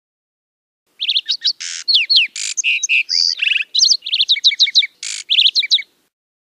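Lark sparrow singing one long, varied song that begins about a second in and lasts about five seconds. It mixes quick down-slurred chirps, buzzy notes and a rapid trill, with runs of repeated notes near the end.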